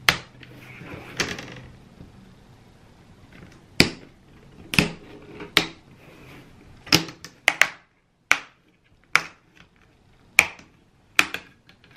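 Plastic snap clips of an Acer Aspire One Cloudbook 11's LCD bezel popping loose one after another as the bezel is pried off the lid by hand: a series of sharp clicks, about a dozen, roughly a second apart.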